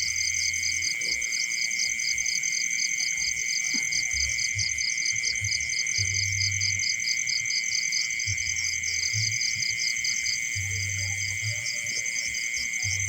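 Insect chorus: several steady, high-pitched trills layered together, one of them pulsing about four times a second until it stops near the end.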